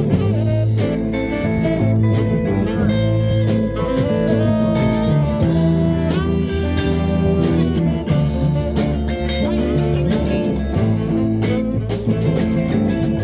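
Live blues band playing a minor blues: guitar with bent notes over bass and drums.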